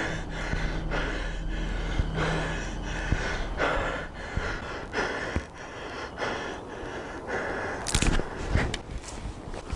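A man breathing heavily, quick audible breaths about twice a second, with a couple of sharp clicks near the end.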